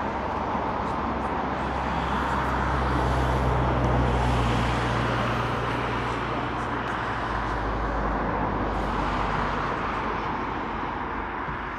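Aircraft engine noise, a steady rush with a low hum, swelling to a peak about four seconds in and then slowly fading as the aircraft passes.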